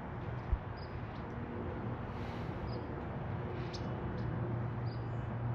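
Steady outdoor background noise with a low hum, one short thump about half a second in, and a few faint, short high chirps.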